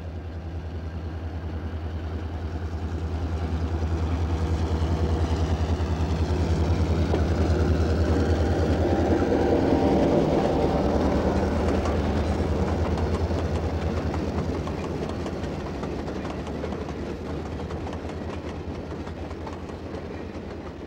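Diesel passenger train led by EMD E-unit locomotives passing by: a low engine drone and rail clatter growing to loudest about halfway through, then fading as the cars roll away.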